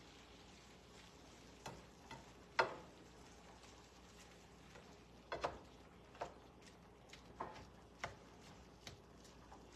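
A utensil clicking and knocking against a frying pan as ground beef and onions are stirred, in about eight irregular strokes, the loudest about two and a half seconds in, over a faint steady sizzle of the frying meat.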